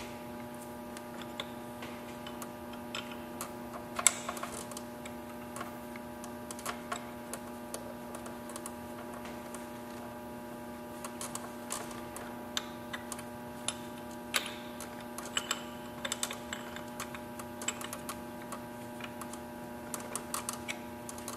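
Light, irregular metallic clicks and taps as brake pads are worked back into a Brembo motorcycle brake caliper by gloved hands, the sharpest about four seconds in, over a steady electrical hum.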